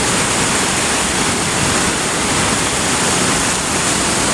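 Rushing river water: a loud, steady hiss with no let-up.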